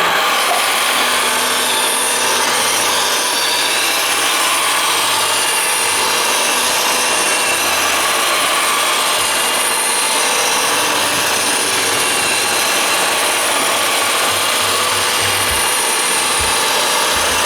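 iRobot Roomba 581 robot vacuum running a cleaning cycle: its vacuum motor and brushes make a loud, steady whirring hiss, with a few low knocks near the end.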